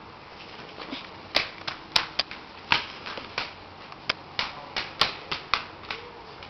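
A quick, irregular run of sharp clicks and taps, roughly three a second, starting about a second in.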